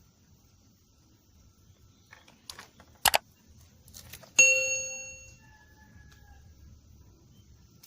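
A few sharp clicks and knocks, then a single sharp metallic ding about halfway through that rings on and fades over about a second.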